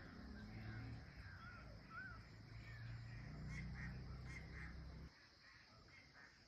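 Faint bird calls: short, curving chirps and repeated notes. They sit over a low rumble that cuts off abruptly about five seconds in.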